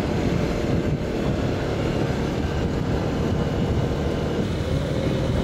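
CFMOTO 800MT Explore's 799 cc parallel-twin engine (KTM 790-derived) running steadily at cruising speed, under a constant rush of wind and road noise while the bike is ridden.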